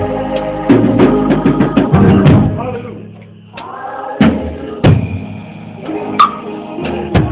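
Praise music with sustained chords and a drum kit. It drops off almost to nothing about three seconds in, then single loud drum hits come back over a quieter held chord.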